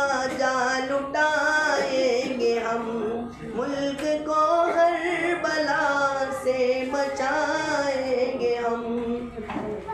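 A boy singing a patriotic Hindi-Urdu poem unaccompanied, in long held notes that glide and waver in pitch.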